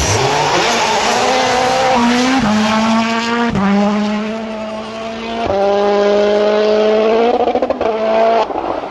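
Rally car engine accelerating hard through the gears, its pitch dropping at each of about three quick upshifts, before the sound cuts off suddenly near the end.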